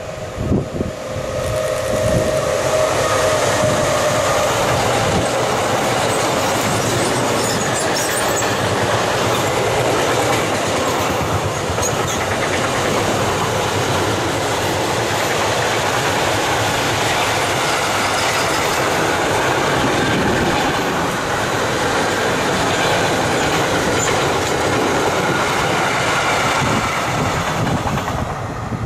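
Mixed freight train hauled by a DB Cargo class 193 Siemens Vectron electric locomotive passing close by: a steady whine from the locomotive fades within the first few seconds, then the wagons roll past with a continuous rumble and wheel clatter and a few brief wheel squeals. The sound drops away near the end as the last wagon passes.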